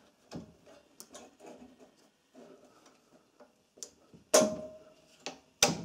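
Small clicks and light knocks of hands moving the wiring and fittings on a small petrol engine that is not running. Near the end come two louder sharp knocks, the first ringing briefly like metal.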